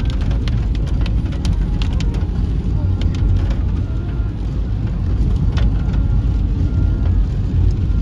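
Steady low rumble of a car driving on a wet road, heard from inside the cabin, with scattered sharp ticks of raindrops hitting the car.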